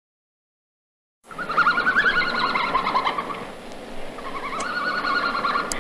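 A flock of birds chirping and twittering together, many short overlapping calls, starting after about a second of silence.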